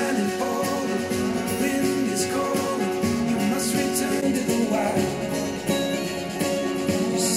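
A guitar-led song played back through Adam Audio T5V studio monitors and picked up by room microphones, switching to the larger Adam Audio T8V monitors near the end.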